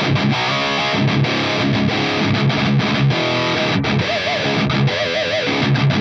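Electric guitar played through a KSR Juno amplifier in lead mode, with the Feel control at position 6 (Fat and Thick on, Voice off): distorted fast picked riffing, then held notes with wide vibrato about four to five seconds in.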